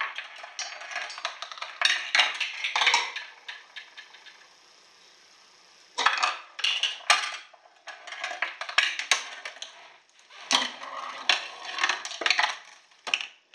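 Small balls rolling and the parts of a homemade chain-reaction machine clattering, clicking and knocking in quick runs, with a quieter stretch of about three seconds in the middle before several sharp knocks and more rattling.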